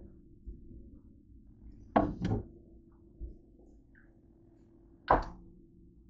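Kitchen handling knocks: a refrigerator door shutting with a double thump about two seconds in, then a single sharp knock about five seconds in.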